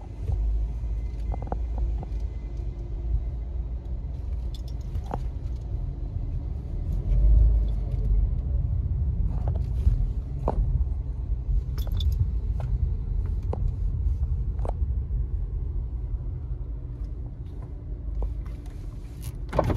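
Volkswagen Beetle rolling slowly, heard from inside the cabin: a steady low rumble of engine and tyres, with a few light clicks and rattles scattered through it.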